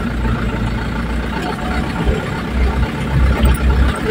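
Truck engine running steadily at low revs as the vehicle creeps along a rough road, a continuous deep hum.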